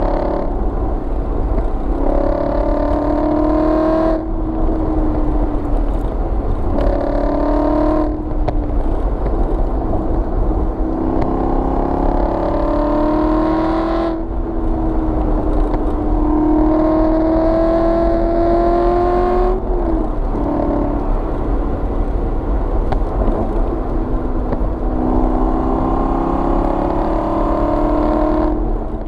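Aston Martin V8 Vantage's V8 engine and exhaust pulling hard, held a gear or two lower than needed to keep the noise up. The note climbs in pitch through several pulls and drops back each time, about every four to six seconds.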